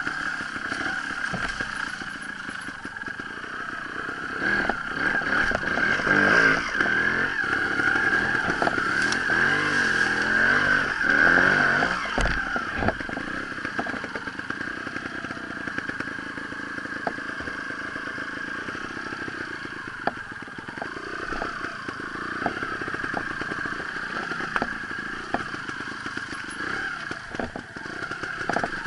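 Sherco trials motorcycle engine running and revving up and down as it is ridden over rough ground, with scattered knocks and clatter. The revving is louder for several seconds early in the stretch, then settles to a lower, steadier run.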